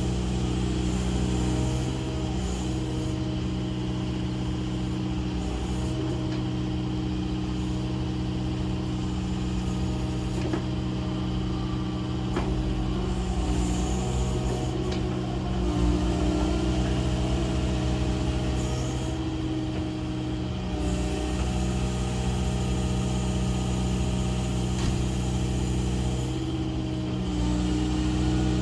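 Kubota KX080-4 excavator's diesel engine running steadily while the boom and arm are moved hydraulically, the engine note swelling and easing slightly under load.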